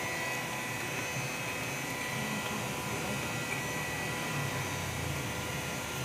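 CNC router running steadily: an even machine noise with a constant high whine.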